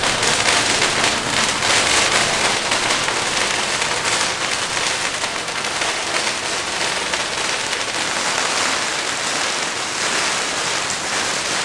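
A long string of firecrackers going off in a continuous, dense crackle, starting abruptly.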